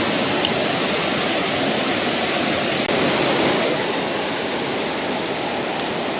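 Steady, even rush of a 30-foot waterfall, water pouring down into the pool below.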